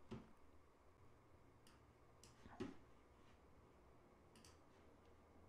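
Near silence with a few faint, isolated clicks of a computer mouse, the clearest about two and a half seconds in.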